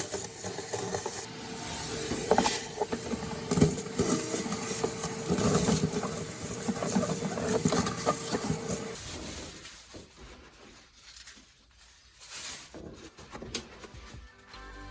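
Irregular knocks and clatter, as of parts being handled and pulled during dash removal. A steady hum runs under them and stops about nine seconds in, after which there are only scattered fainter knocks.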